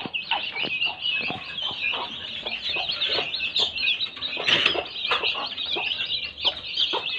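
Newly hatched chicks peeping continuously in rapid short chirps, with a few sharp knocks.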